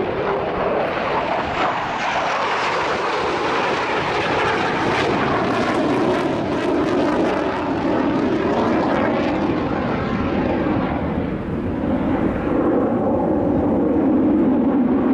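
Jet engines of two Mitsubishi F-2 fighters, each a single afterburning turbofan, flying past in a display, a loud, continuous jet noise that swells toward the end.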